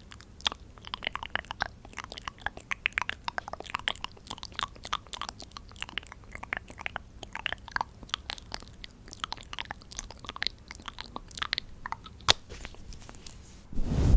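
Liquid foundation being worked close to the microphone: a dense, irregular run of quick crackly clicks, with a louder thump near the end.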